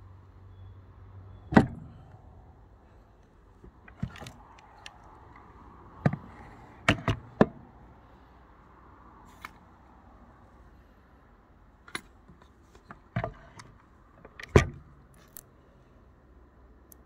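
Sharp clicks and knocks from handling a Brno-made Persian Mauser bolt-action rifle on a table: isolated clicks every second or two, with a quick run of three about seven seconds in.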